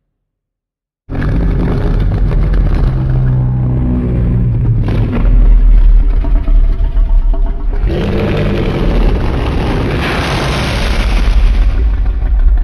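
Giant-monster roar sound effect: a loud, long, rough roar over a deep rumble, starting suddenly about a second in. It breaks off past the middle, then swells again to its loudest near the end.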